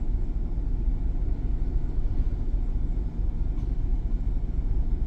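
Cadillac V8 engine idling with a steady low rumble; the scanner logs a misfire on cylinder 6.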